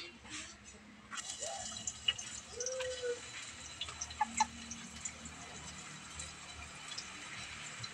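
Chopped aromatics frying in hot cooking oil in a wok over a wood fire: a faint sizzle with small crackles, starting about a second in.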